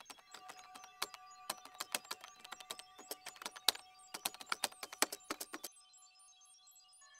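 Quiet typing sound effect: rapid, irregular keystroke clicks that stop about six seconds in, over a faint steady tone.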